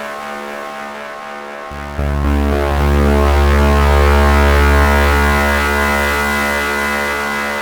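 Eurorack modular synthesizer drone played through the Make Noise Bruxa delay-and-filter module, a steady tone rich in overtones. A deep bass note enters suddenly about two seconds in, swells, then slowly fades toward the end.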